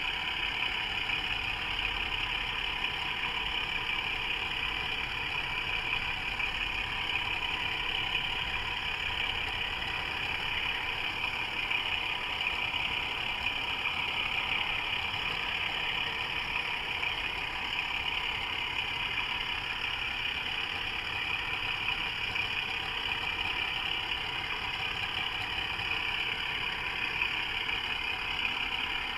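Model Class 24 diesel locomotive running steadily along the track, heard close from a camera riding on it: an even drone with a hiss, with no change in pace.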